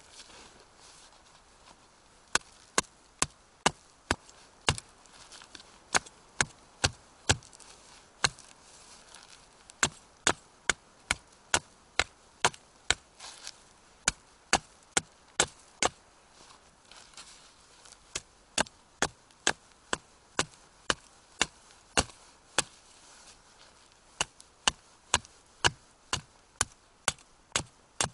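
Small hatchet chopping into a thin dry dead stick held upright: a long series of sharp wooden strikes, about one to two a second, in runs broken by short pauses.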